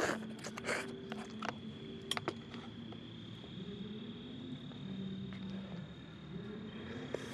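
Crickets trilling steadily in one unbroken high tone, with a few light clinks and knocks of camp cookware being handled in the first couple of seconds. A faint low drone rises and falls underneath.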